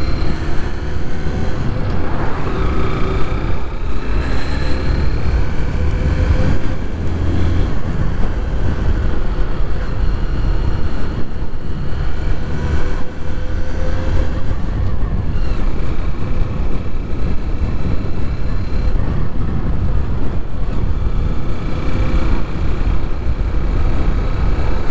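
Small Honda motorcycle engine running under way at city speed, its pitch rising and falling a few times with the throttle, under heavy wind rumble on a helmet-mounted microphone.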